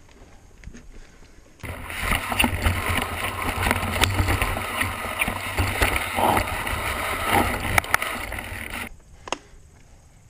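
Mountain bike rattling over a rocky trail: dense tyre and frame noise with many small knocks and a low rumble. It starts suddenly about one and a half seconds in and cuts off sharply near the end.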